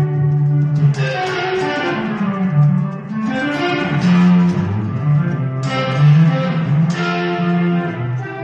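Electric guitar played solo: chords and single notes ring out and sustain, with a new one struck every second or two.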